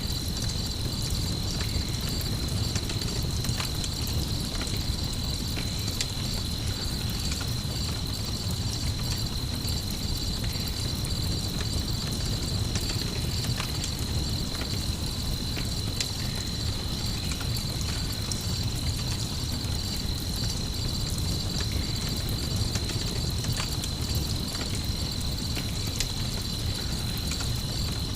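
Night ambience of crickets trilling steadily, mixed with a campfire crackling in scattered pops, over a low steady rumble.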